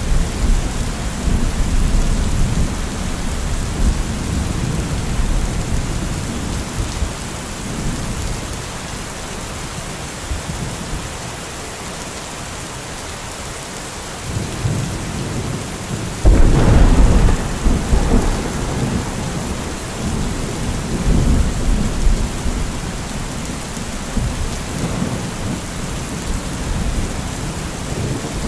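Steady rain with thunder: a deep rumble dies away over the first several seconds, then a sudden loud thunderclap about 16 seconds in rolls on for a few seconds, followed by lighter rumbles.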